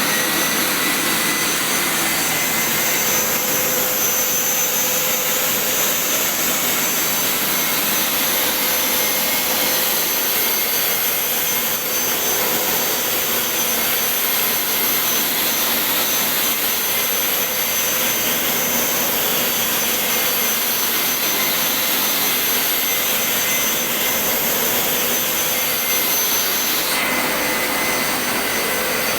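Carpet-washing machine's suction motor running steadily, a loud even rushing whine like a vacuum cleaner.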